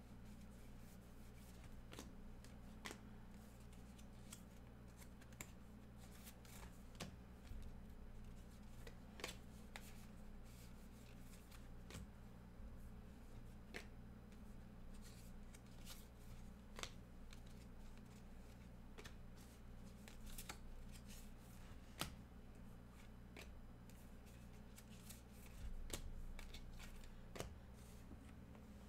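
Baseball trading cards flipped through by hand one at a time: faint, irregular soft clicks and slides of card against card, over a steady low hum.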